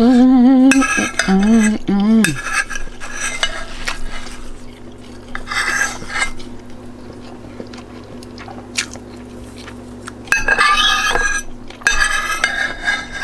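Metal utensil scraping and clinking against a plate as the last of a meal is gathered up, with a short wavering hum of a voice in the first two seconds.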